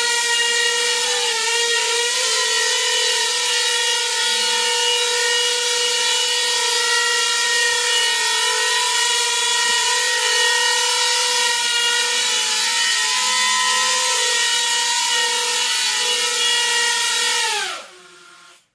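Small coaxial copter's electric motors and coaxial rotors whining steadily at one pitch while it hovers, then dropping in pitch and stopping near the end as it lands and the motors spin down.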